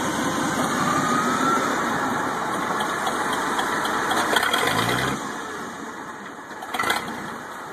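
Clark forklift's engine running, loud and steady for about five seconds, then dropping to a lower level. One short sharp knock sounds near the end.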